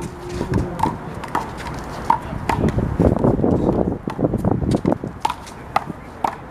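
One-wall handball rally: a rubber handball slapping sharply off palms, wall and pavement at an irregular pace, several hits a second at times, over scuffling footsteps.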